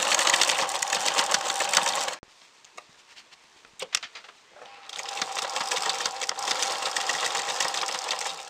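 Electric domestic sewing machine stitching through two layers of fabric: a fast, even rattle of needle strokes over a steady hum. It stops about two seconds in, a few clicks follow, and it starts sewing again at about five seconds.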